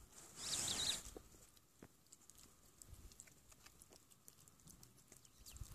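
Meerkats feeding at close range: faint, scattered light clicks and taps, with a brief high-pitched burst about half a second in.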